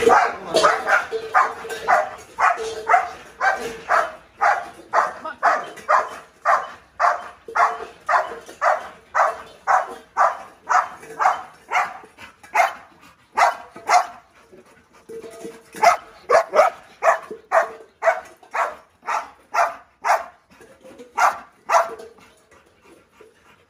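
A caged dog barking over and over, about two barks a second, with a short break around two-thirds through and the barking dying away near the end. Its keepers call this kennelled dog fierce.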